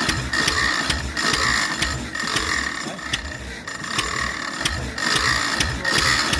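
Merit hot-tube ignition stationary engine running, with a fast, even clicking from its moving parts and a louder beat about once a second.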